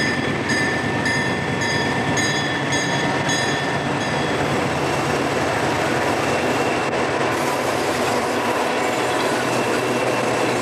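Diesel freight locomotives rolling past at a grade crossing, engines running and wheels rumbling over the rails, with a thin high wheel squeal. A crossing bell rings about twice a second and stops about four seconds in.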